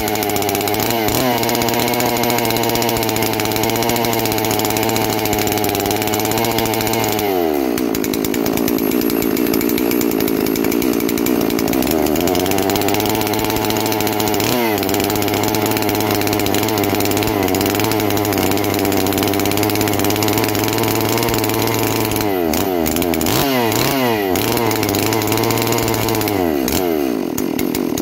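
Farmertec G444 chainsaw, a two-stroke Stihl MS 440 clone run as a bare powerhead without bar or chain, running on its first start. The engine note is steady but wanders in speed, dropping about seven seconds in, picking back up a few seconds later, and dipping briefly several times near the end.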